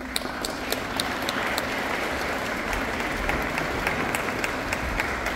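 Audience applauding, many hands clapping in a steady patter with some sharper single claps standing out.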